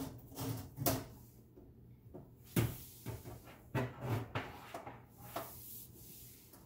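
Irregular knocks, bumps and rubbing from hands and hoses working inside a wooden sink base cabinet as the dishwasher's drain and water hoses are pulled through, the sharpest knock about two and a half seconds in. A low steady hum runs underneath.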